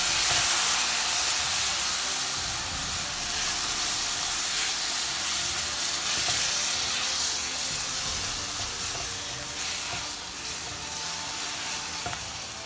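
Onions and ground spices sizzling and steaming in hot oil in a pan, just after water was poured in, while a silicone spatula stirs and scrapes through them. The hiss slowly dies down as the water cooks into the spice paste.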